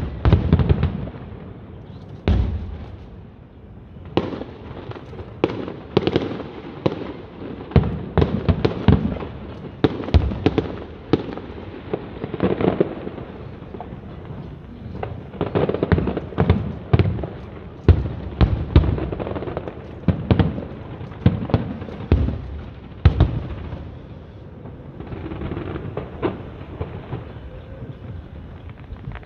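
Aerial fireworks show: shells bursting in a continuous barrage of bangs and booms, some in rapid clusters, with a brief lull a few seconds before the end.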